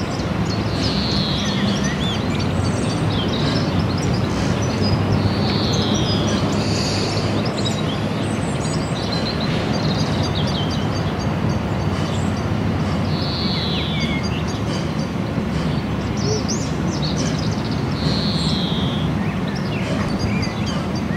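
LNER A4 three-cylinder Pacific steam locomotive working a train, a steady low rumble of exhaust and running gear with no separate beats picked out. A bird repeats a short falling call every few seconds over it.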